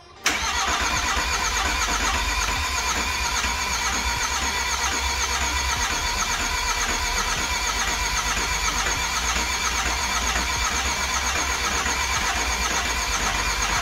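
Volkswagen Crafter's 2.0 turbo diesel engine comes in suddenly just after the start and then runs steadily. This is the freshly fitted replacement engine being fired up for the first time.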